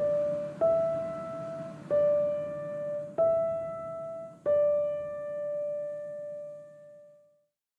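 Slow piano music: single held notes struck about every second and a half, the last one ringing out and fading away to silence.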